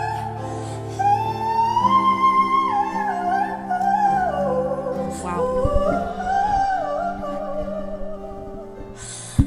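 A young female singer's voice holding and running through ornamented notes, gliding up and down, over soft sustained instrumental chords.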